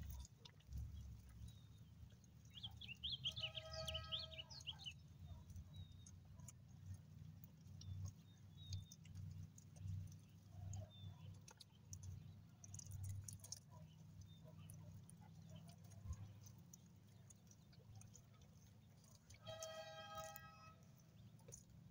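A dog faintly chewing and tearing at prickly pear fruit on the cactus, with soft crunching and clicking. Two distant animal calls, each about a second and a half long, come about three seconds in and again near the end.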